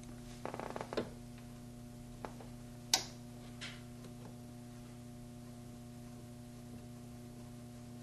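Screwdriver working the mounting screws of an interior door handle: a few light clicks and ticks in the first second and one sharper click about three seconds in, over a steady low hum.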